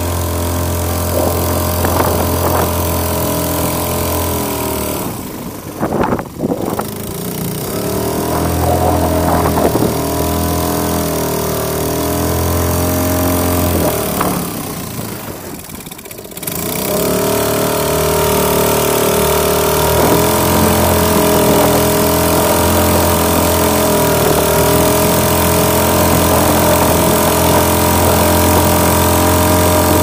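Honda 2.3 single-cylinder four-stroke outboard motor running under way, towing an anchor dragged on its rope. Its pitch wanders up and down, and the sound drops away briefly twice, about six seconds in and again around fifteen seconds.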